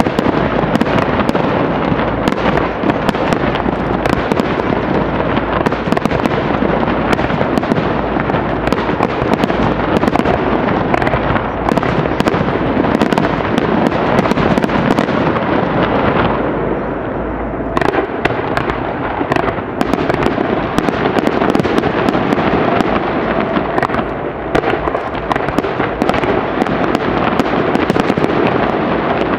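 A rapid barrage of aerial fireworks shells bursting one after another, the booms merging into a continuous rumble with sharp crackles on top, heard from a distance across the river.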